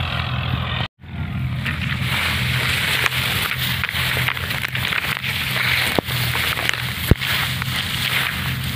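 Dry paddy stalks rustling and brushing against the microphone as someone pushes through standing rice, over the steady low drone of a combine harvester's engine working in the field. The sound cuts out briefly about a second in, and there are two sharp clicks near the end.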